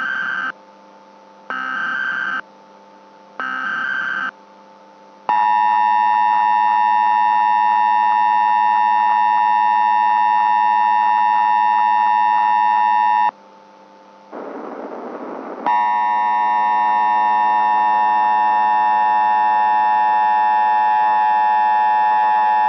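Emergency Alert System SAME header: three short data bursts about a second apart, then the EAS attention signal, a steady tone held for about eight seconds. After a brief burst of noise, a second steady alert tone comes in, swells slightly, and holds for about eight seconds.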